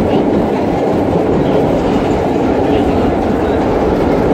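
Vintage R1-9 New York subway cars running along the track, with a loud, steady rumble of wheels and running gear.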